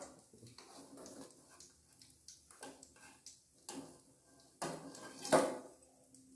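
Metal spatula scraping and clinking against a wok and a glass plate as fried fish is lifted out, with scattered light knocks and a louder clatter about five seconds in.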